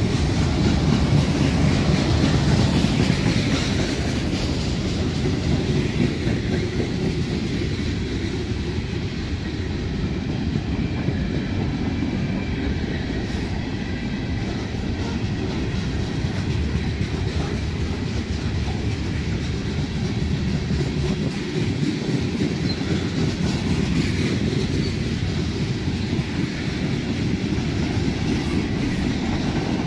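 Freight cars of a mixed freight train (boxcars, covered hoppers, tank cars) rolling past close by: steel wheels running on the rails in a steady, continuous rolling noise, a little louder in the first few seconds.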